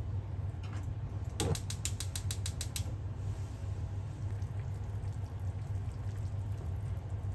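A quick run of about a dozen small mechanical clicks, roughly eight a second and lasting about a second and a half, over a steady low hum.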